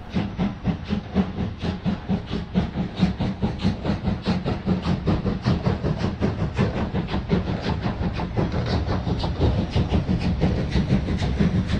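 Exhaust beats of a Deutsche Bundesbahn class 012 three-cylinder, oil-fired express steam locomotive: a fast, even chuffing that keeps up throughout.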